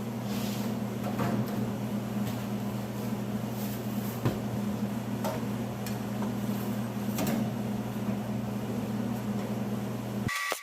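Steady low machine hum over a faint hiss, with a few light clicks and knocks; the hum stops abruptly near the end.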